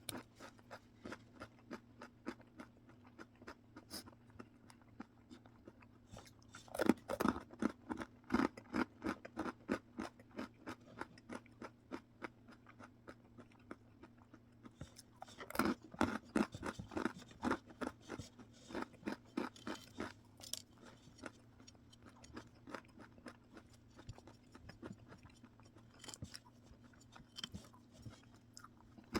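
Close-up chewing of a crunchy snack. There are loud crunchy bites about seven and about fifteen seconds in, each followed by a run of crunchy chews several times a second that slowly die down.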